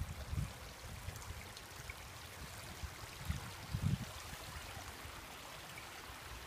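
Faint steady hiss of water, with a few short low thumps near the start and again around three to four seconds in.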